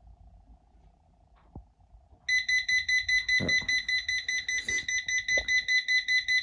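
Baby breathing-monitor alarm going off about two seconds in: loud, rapid, high-pitched beeping. It is the monitor's apnea alarm, set off because its pad no longer senses any breathing movement.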